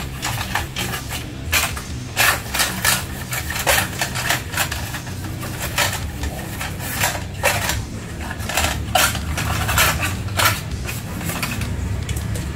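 Plastic cover pieces of a Juki sewing machine clicking and knocking irregularly as they are handled and wiped with a cloth.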